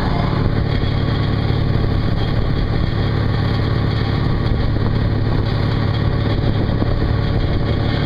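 The engine of a motoring gaff-rigged ketch running steadily at an even pitch, with water rushing along the hull.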